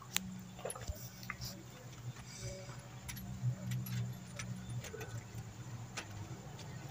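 Light metallic clinks and taps of a hand tool on an aluminium gearbox casing as the speedometer sensor's bolt is tightened, scattered and irregular, over a steady low hum.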